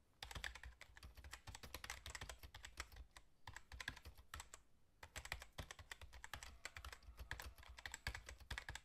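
Computer keyboard typing sound effect: quick, uneven key clicks, with a couple of short pauses near the middle.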